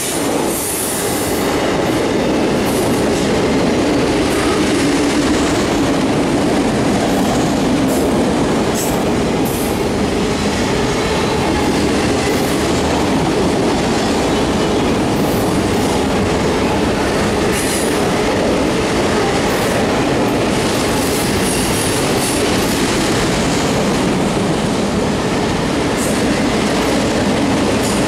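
Autorack freight cars rolling past at track side: a steady, loud running noise of steel wheels on rail, with a few brief high wheel squeals.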